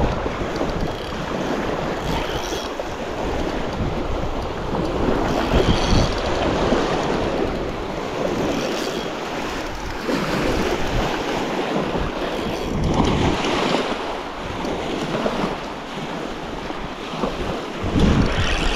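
Choppy, wind-driven lake water lapping and breaking at the shore, with gusting wind buffeting the microphone.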